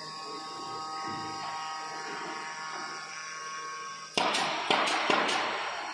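Oscillating knife head on a CNC router buzzing steadily with a whining tone. About four seconds in, a much louder rough hiss with a few sharp knocks takes over.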